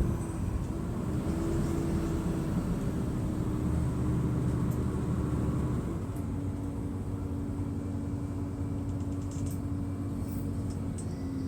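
Mercedes-Benz O500MDA articulated bus's diesel engine running under way, a steady low drone that eases slightly quieter about six seconds in.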